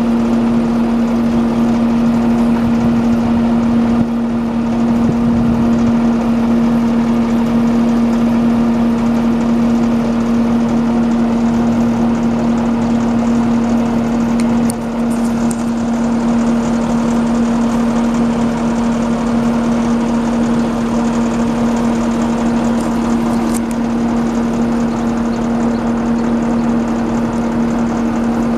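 Engine running at a constant speed on a utility service truck, a steady loud drone whose pitch never changes, with a short dip in loudness about halfway through.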